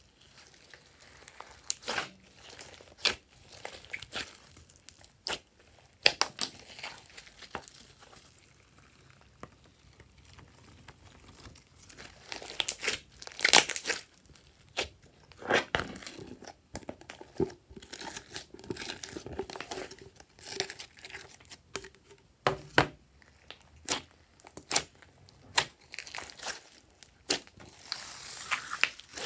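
A large mass of soft pastel slime being kneaded, stretched and pressed by hand, giving irregular sticky crackles and pops, with a louder run of crackling about halfway through.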